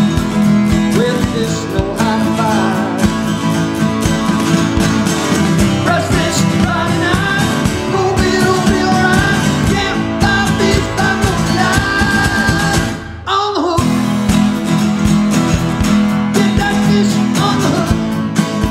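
Background music: a country-style song with guitar and a singing voice, with a short break about thirteen seconds in.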